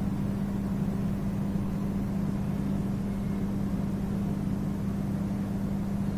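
Steady low hum at one constant pitch, unchanging throughout, with no other event standing out.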